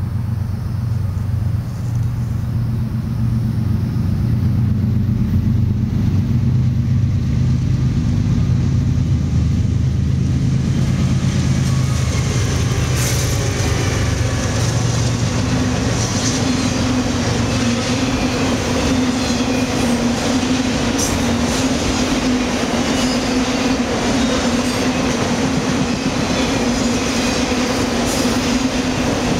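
CSX freight train passing close by: a deep diesel locomotive drone for the first ten seconds or so, then a long string of autorack cars rolling past with steel wheels rushing and clattering on the rails and a steady low whine.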